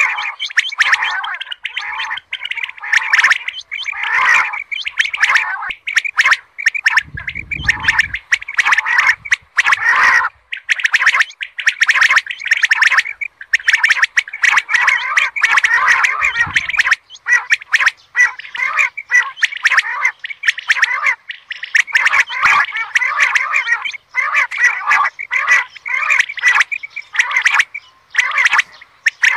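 Female common quail calling: a continuous, rapid stream of raspy chattering calls, the 'kirak' call.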